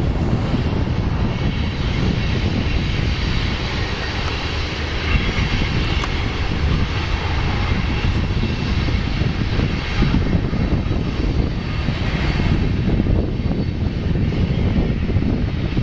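Union Pacific mixed freight train passing at a distance: a steady rumble of diesel locomotive engines and rolling cars.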